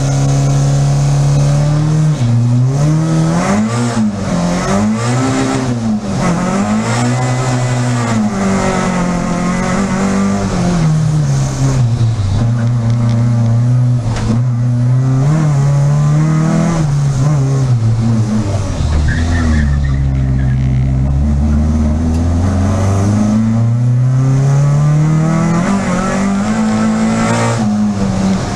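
Peugeot 306 Group A rally car's engine heard from inside the car at racing pace. The revs rise and fall again and again as the driver accelerates, changes gear and lifts for corners, with a few longer pulls through the gears later on.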